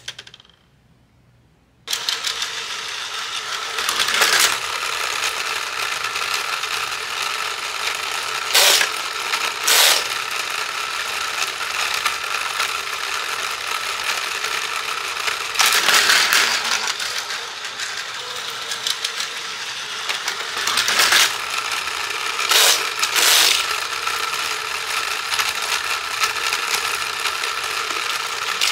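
Plastic gears of a Plarail toy train and cargo-terminal set running with a steady ratcheting whir, starting about two seconds in, with several louder clacks as the terminal's lever and button are worked.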